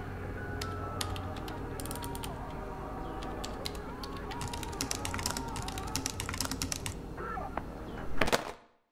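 Computer keyboard keys clattering in rapid flurries of typing, over a low hum with faint gliding electronic tones. A louder burst comes near the end and cuts off suddenly into silence.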